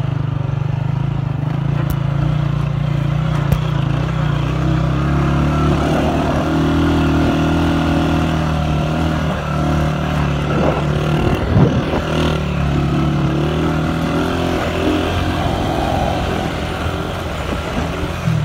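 Motorcycle engine running while the bike is ridden over sand, its pitch rising and falling with the throttle, with a louder stretch and a few knocks about eleven seconds in.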